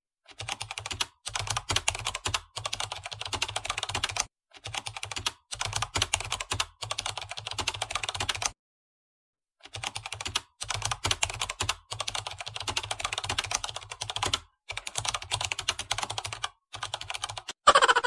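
Computer keyboard typing, rapid keystrokes in runs of one to a few seconds with short pauses and a longer pause about eight seconds in. A short, loud whoosh falling in pitch comes near the end.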